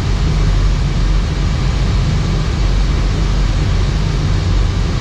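Steady flight-deck noise of an Airbus A319 in flight on approach: an even, rushing drone with a strong low rumble that doesn't change.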